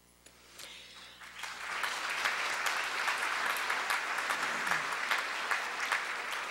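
Audience applauding: a round of hand clapping that starts faintly about half a second in, builds over the next second, and carries on steadily.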